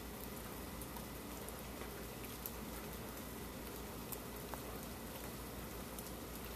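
Faint steady hiss with a low hum under it and a few soft ticks scattered through it.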